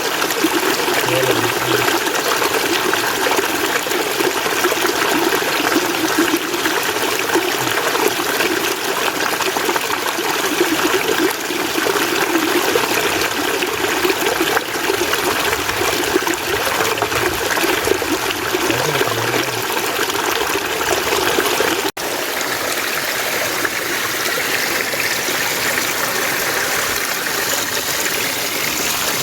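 Mountain stream water flowing steadily. About three quarters of the way through it cuts suddenly to another stretch of flowing water with more hiss and less low rush.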